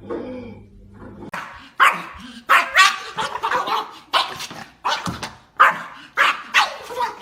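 A dog barking over and over in a quick run of short barks, about two a second, starting a little over a second in.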